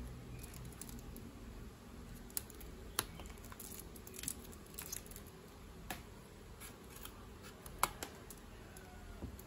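Scattered small clicks and taps of hands handling a paper milk carton, twisting its plastic screw cap and moving a plastic cup of ice cubes. The loudest is a sharp click a little before the end.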